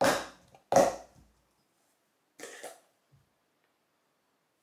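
A man sniffing hard through his nose, smelling a shaving soap: two sharp sniffs close together at the start and a fainter one about two and a half seconds in.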